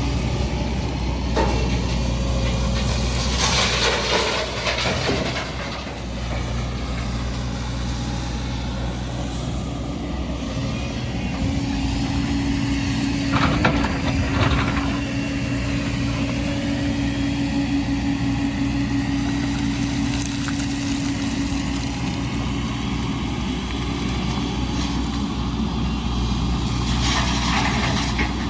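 Heavy diesel construction machinery running with a steady low drone. A steady higher whine is held for several seconds in the middle, and three short hissing, rushing bursts come about 4 s in, about 14 s in and near the end.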